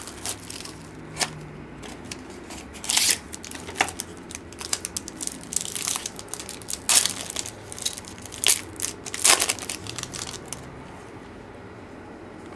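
A 2007 Bowman Sterling baseball card pack being torn open, its wrapper crinkling and crackling in irregular bursts. The crackling is loudest in the middle and dies away near the end.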